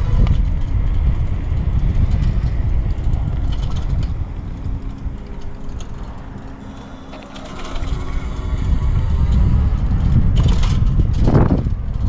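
Wind buffeting the camera microphone on a moving electric bike: a loud low rumble that eases for a few seconds past the middle, letting a faint steady hum through, then builds again.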